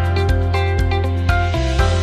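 Instrumental background music: plucked notes about every half second over a held bass.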